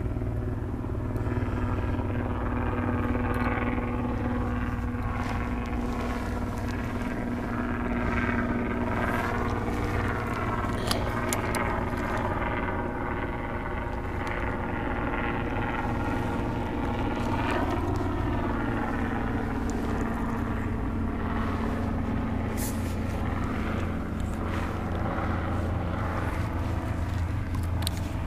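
A steady engine drone whose pitch rises and falls back twice, with a few light clicks.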